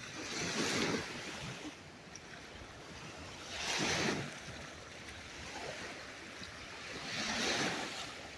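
Small lake waves washing onto a sandy shore, three washes about three and a half seconds apart, under a steady hiss of wind.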